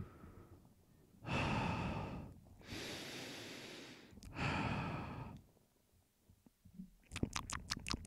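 A person breathing heavily into a dynamic USB microphone held close: three long, noisy breaths of about a second each. Near the end comes a quick run of sharp clicks.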